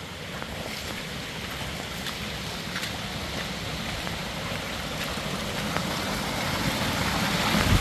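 Rushing mountain river water, a steady roar that grows gradually louder, with a few faint clicks over it.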